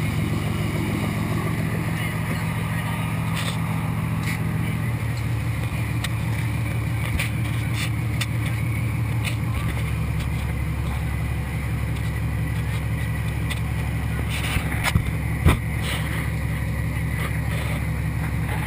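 Motor boat's engine running steadily under way, a low drone under rushing water and wind. A couple of sharp knocks about three quarters of the way through.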